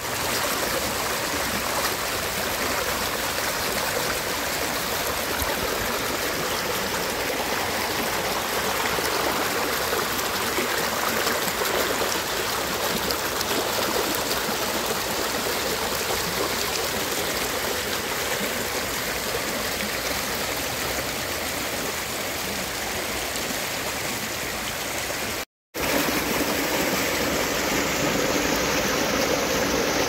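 Muddy creek water rushing and churning over rocks in a steady rush. The sound breaks off for a split second about 25 seconds in, then carries on.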